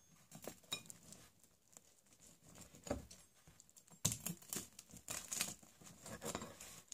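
Rotary pizza cutter rolling through a thick, crisp-crusted pizza slice on a plate: faint crackling and crunching of the crust in scattered bursts. The bursts come closer together from about four seconds in.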